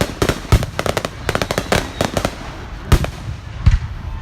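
Fireworks bursting: a rapid run of crackling pops, then several single heavier bangs a second or so apart.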